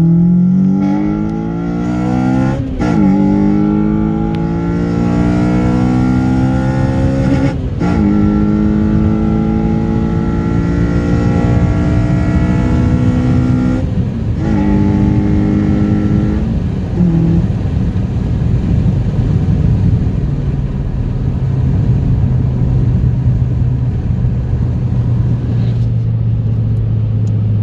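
Honda Civic EP3 Type R's 2.0-litre i-VTEC four-cylinder with a Tegiwa induction kit, pulling hard up through the gears with a loud induction sound. The revs climb steadily, drop at gear changes about 3, 8 and 14 seconds in, then settle to a steady cruise from about 17 seconds.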